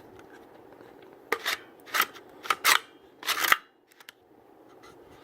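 Extar EXP-556 pistol being handled: a quick series of about five short metallic scrapes and clicks, as the charging handle is worked past the folded brace, then a couple of faint ticks.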